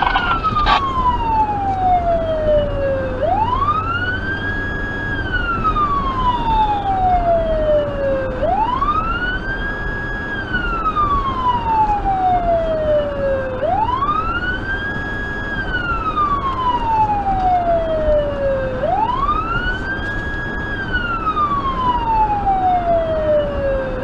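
Federal Signal Touchmaster Delta electronic siren sounding its wail: a quick rise of about a second, a brief hold at the top, then a slow slide down, repeating about every five seconds. Steady road noise from inside the car runs underneath.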